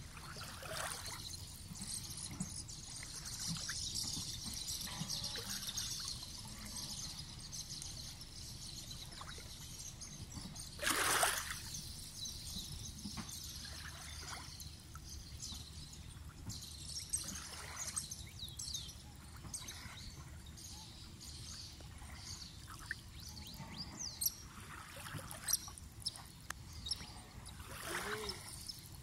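Shallow lake water trickling and splashing around a wading marabou stork, with many small splashes and one brief louder splash about a third of the way through. Faint bird calls sound in the background.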